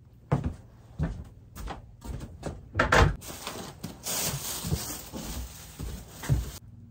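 Kitchen handling sounds: a string of knocks and thumps, the loudest about three seconds in, followed by a few seconds of rustling noise.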